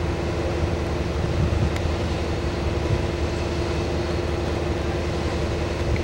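Henschel W3 diesel locomotive idling, a steady hum with one held tone over a low rumble.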